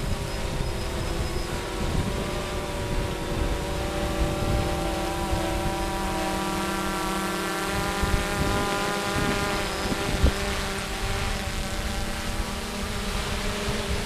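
Two quadcopter drones, a GoPro Karma and a 3DR Solo, hovering, their propellers giving a steady buzzing hum, under heavy wind rumble on the microphone in high wind. There is a single sharp knock about ten seconds in.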